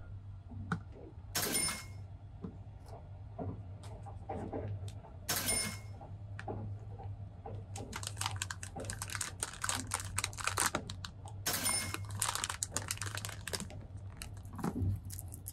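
Plastic snack packaging crinkling and rustling with many small clicks and taps as it is handled on a table, busiest in the second half, with a few louder brief rustles. A steady low hum runs underneath.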